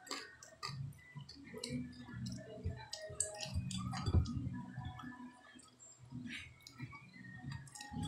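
A person chewing food with an open mouth, with wet smacks and small irregular clicks while eating by hand.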